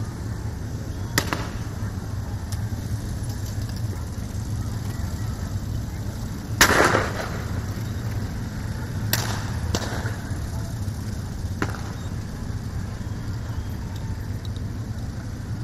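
Low steady rumble of a group of motorcycles running, broken by a handful of sharp bangs, the loudest about six and a half seconds in with a short echo after it.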